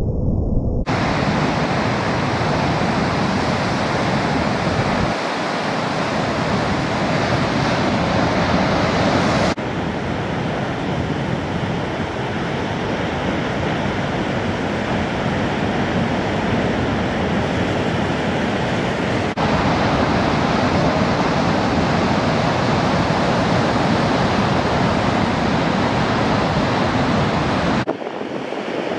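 Ocean surf: waves breaking and whitewater rushing as a steady roar, with wind buffeting the microphone. The noise changes character abruptly three or four times where one recording gives way to another.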